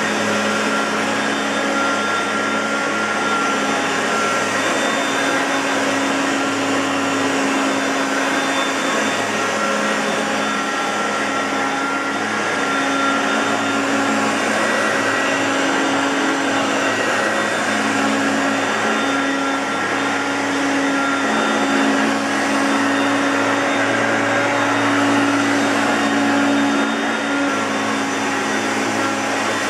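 Hoover Concept Two Electronic upright vacuum cleaner running steadily: a constant motor hum with a higher whine over it and a wash of airflow noise, wavering only slightly in level.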